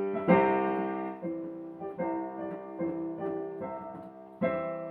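Solo piano music, slow notes and chords each left to ring and fade, with a loud chord just after the start and another near the end.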